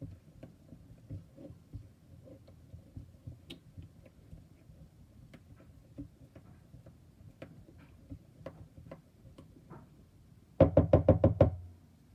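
Spatula stirring thick glue in a bowl, with faint scrapes and clicks, then near the end a quick run of about seven loud knocks as the spatula is rapped against the bowl.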